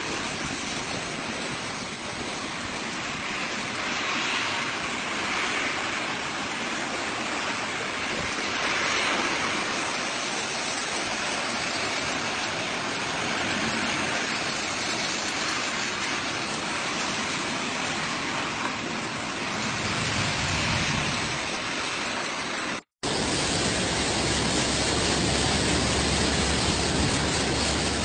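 Cyclone wind and heavy rain: a steady rushing noise. A brief break about 23 seconds in is followed by a different, louder steady noise with more low rumble.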